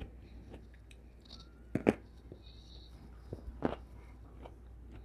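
Close-up sounds of a person biting and chewing red grapes, with scattered sharp crunches. The loudest crunch comes about two seconds in and another a little before four seconds.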